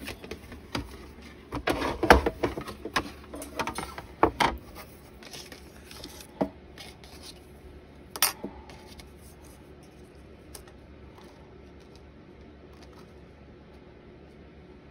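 Clatter of the plastic cutting plates and metal die of a Sizzix Big Shot die-cutting machine being handled: a run of irregular clicks and knocks, loudest about two and four seconds in, then a single sharp click about eight seconds in.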